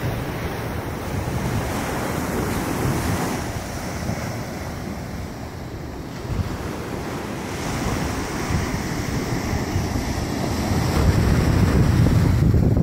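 Small ocean waves breaking and washing up a sandy beach, swelling and ebbing, with wind rumbling on the microphone. It grows louder near the end.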